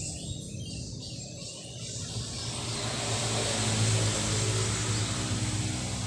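A motor vehicle passing, a low engine hum with a rushing noise that swells to a peak about four seconds in and stays up.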